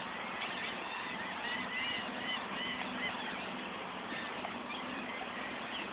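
Water birds calling in a series of short, arched, honking calls, most of them in the first half, over a steady low hum and a constant hiss.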